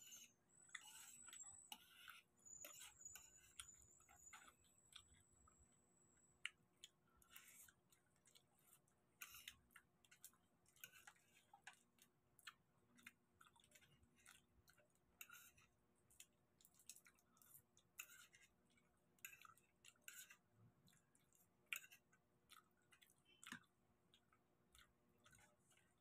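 Faint, irregular wet clicks and crackles of eating by hand: cooked prawn shells being peeled, with chewing and lip smacking.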